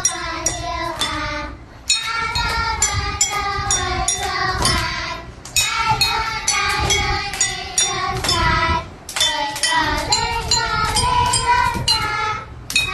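A children's song: singing over a steady beat, in phrases broken by short pauses about every three to four seconds.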